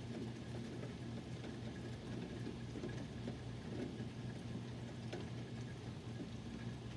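Steady rain falling, with scattered drops ticking and a steady low hum underneath.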